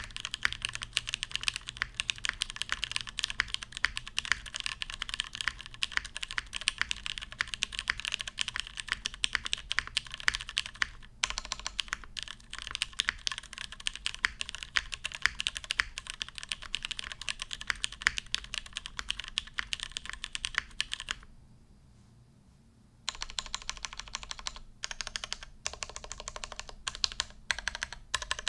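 Typing on a custom mechanical keyboard with lubed vintage Cherry MX Black linear switches in an aluminium plate: a fast, steady run of keystrokes. About three-quarters of the way through, the typing stops for about two seconds, then resumes in shorter bursts.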